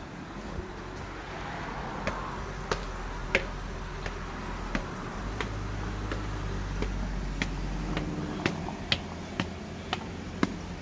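Footsteps on hard ground, a sharp tap at walking pace, over a low steady rumble that grows stronger for a few seconds in the middle.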